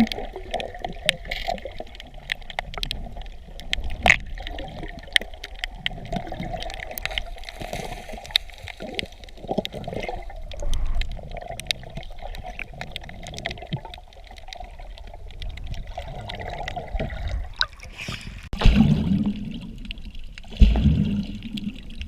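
Water sloshing and trickling close to the microphone, with many small sharp clicks throughout and two dull, heavy thumps near the end.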